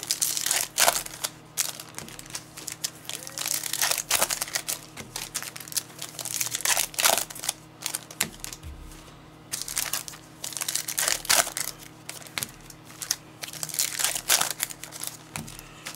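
Plastic trading-card pack wrappers crinkling and tearing as packs of football cards are ripped open, in irregular rustling bursts, over a faint steady hum.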